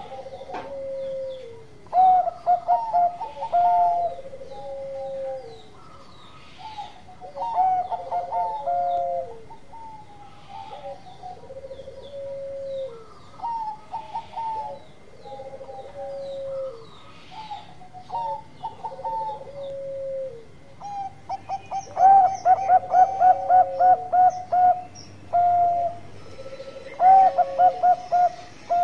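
Zebra dove (Thai-bred perkutut bangkok) singing its cooing song. Phrases of short staccato coos, each ending in a lower falling note, repeat every two to three seconds. About 22 s in, and again near the end, the bird breaks into fast runs of rapid, even coos, which are the loudest part.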